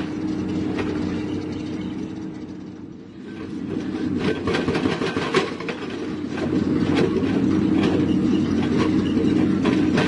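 Excavator-mounted hydraulic breaker hammering rock in a rapid stream of sharp strikes over the excavator's steady diesel engine drone. The hammering stops and the sound dips about three seconds in, then resumes and keeps going.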